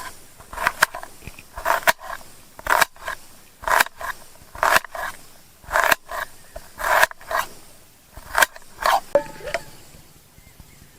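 A run of short scraping strokes, about one a second, that stops about nine seconds in.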